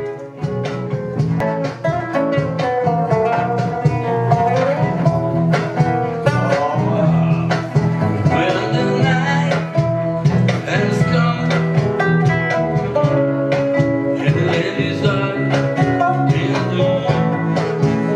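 A small band of acoustic guitars, an electric guitar and a bass guitar playing together, with a steady bass line underneath and a lead melody that bends in pitch.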